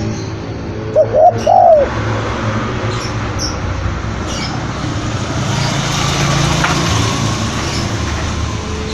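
Spotted dove cooing: a short loud phrase of a few arched coo notes about a second in. Faint high chirps from small birds and a steady low background rumble run underneath.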